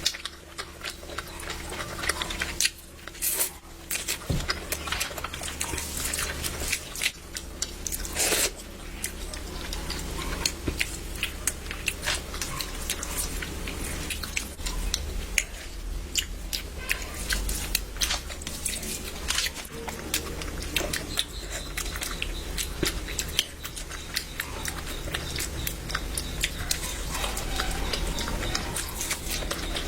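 A person chewing and biting food close to the microphone, with many small wet mouth clicks and smacks throughout, over a steady low hum.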